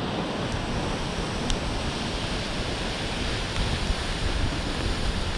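Waterfall plunging into a rocky gorge: a steady rushing roar, with wind buffeting the microphone underneath.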